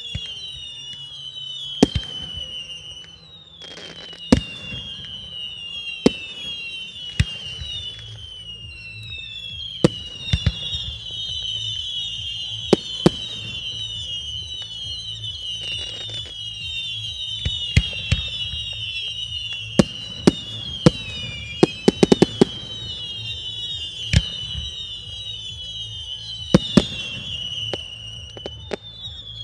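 Aerial fireworks shells bursting with sharp bangs every second or two, with a quick run of several in a row a little past the middle. A continuous high chirring runs underneath.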